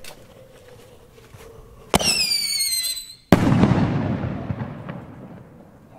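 A 45 mm scream shell firework goes up with a loud screaming whistle that falls in pitch for about a second. It then bursts with a sharp bang, followed by a long fading rumble.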